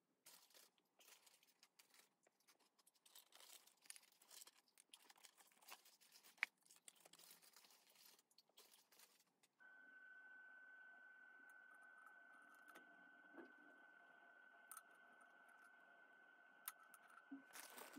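Faint, scattered rustling and clicking of small parts being handled. About ten seconds in, a faint, steady high electronic whine with lower tones under it starts abruptly and holds.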